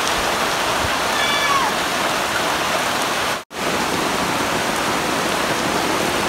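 Heavy rain falling steadily onto shallow floodwater and wet mud: a dense, even hiss that cuts out for an instant about three and a half seconds in.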